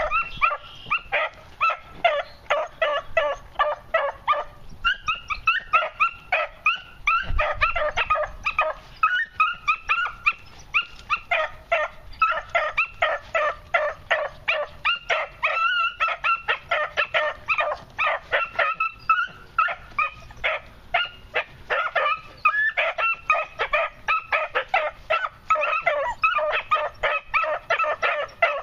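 Beagle pups yelping, a fast, near-continuous run of short high yips at about three or four a second, the way young hounds give voice while trailing scent.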